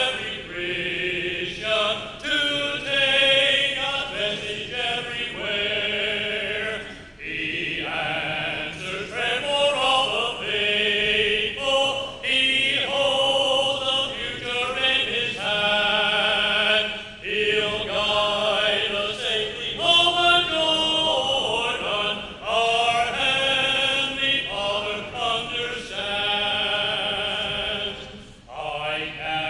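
A church congregation singing a hymn unaccompanied, led by a man's voice on a microphone, in held notes with short breaks between phrases.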